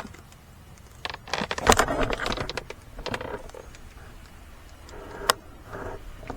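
Handling noise: rustling and light rattling of loose pieces being moved about, in irregular clusters, with one sharp click about five seconds in.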